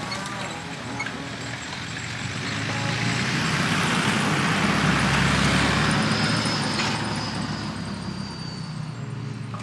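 A four-wheel-drive ute with a canopy driving past on a dirt track. Its engine and tyre noise grow louder, peak about halfway through, then fade as it moves away.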